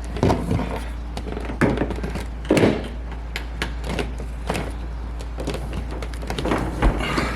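Scattered thunks and clicks of equipment being handled and set down, over a steady low hum.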